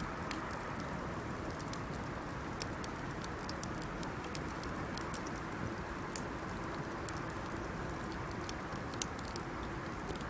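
Wood bonfire burning: a steady low rush of flames with irregular crackles and small pops from the burning wood, one sharper pop about nine seconds in.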